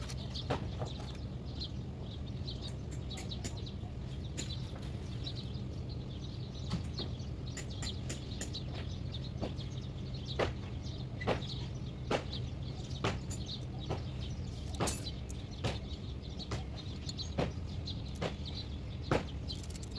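Irregular sharp clicks and metallic taps, like hand tools working on steering box parts, spaced about half a second to a second apart, over a steady low hum. Faint bird chirps are heard in the background.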